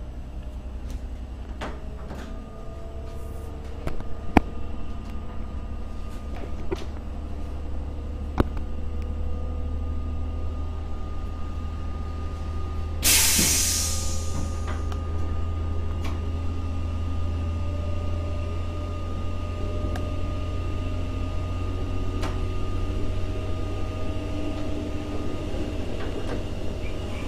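Diesel railcar running, heard from inside the driver's cab as the train pulls away and gets under way: a steady low engine hum with a few sharp clicks from the cab. About halfway through there is one short, loud hiss of compressed air.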